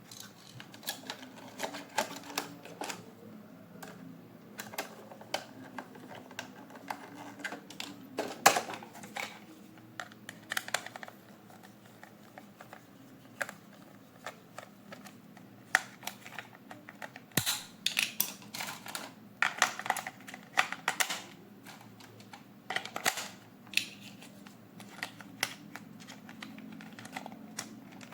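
Irregular clicks, taps and crinkles of plastic toy parts and packaging being handled, with a few louder knocks.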